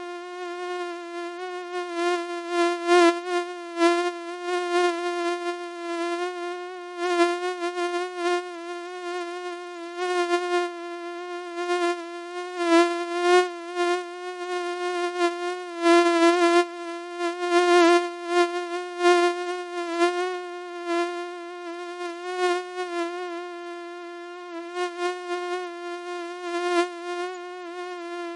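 Mosquito whine in flight: one steady, buzzing tone with a slight waver in pitch, swelling and fading in loudness again and again as the insect flies near and away.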